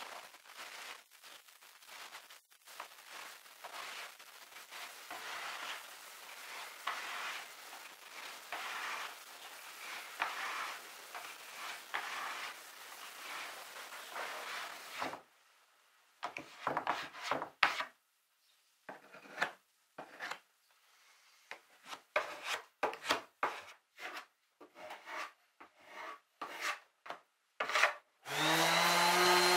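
A stiff plastic spreader scraping back and forth over oak strip boards, spreading a wet coat in repeated strokes, then a run of separate short scrapes and knocks. Near the end a random orbital sander switches on and spins up, rising in pitch, louder than anything before it.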